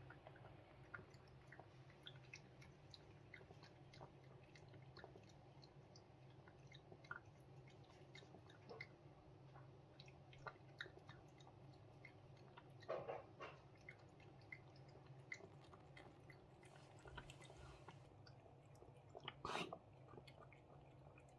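A cat chewing and eating, faintly: a steady run of small wet clicks and smacks, with a louder rustle about 13 seconds in and again about 19 seconds in.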